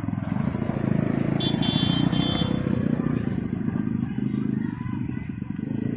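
Go-kart's Bajaj motorcycle engine running as the kart drives past, loudest about a second or two in and then fading as it pulls away. A brief high-pitched tone sounds about a second and a half in.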